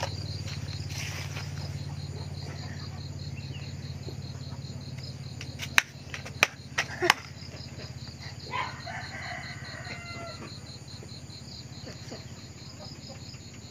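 Rural yard background: an insect chirping in a fast, even pulse over a low steady hum, with a rooster crowing about eight seconds in. Four sharp clicks come close together about six to seven seconds in and are the loudest sounds.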